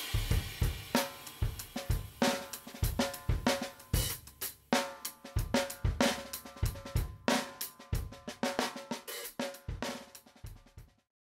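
Background music: a drum-kit beat with cymbals and hi-hat over a pitched instrument, fading out toward the end.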